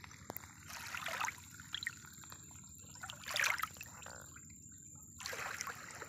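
Water lapping and splashing in a few soft swishes, the strongest a little past halfway.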